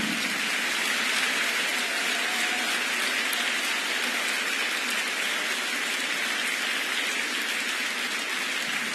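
A large concert audience applauding steadily, a dense even clatter of many hands.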